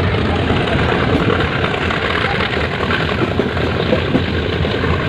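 Metre-gauge passenger train on the move: a steady rumble of the running train with an engine hum beneath it.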